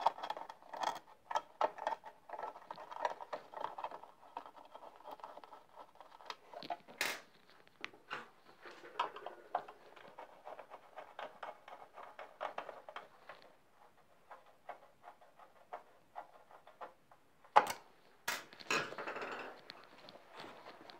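Small metal parts and hand tools being handled: scattered light clicks, clinks and scrapes, with a sharper knock about seven seconds in and two more near the end, followed by a short stretch of scraping.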